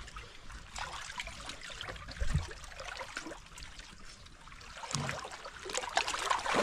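Seawater trickling and lapping among the rocks, a steady faint splashing hiss with small ticks, and a brief low thump about two seconds in.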